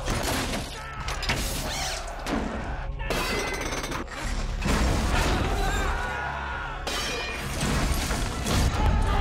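Film battle soundtrack: repeated crashes and impacts over a low rumble, with men shouting and music beneath.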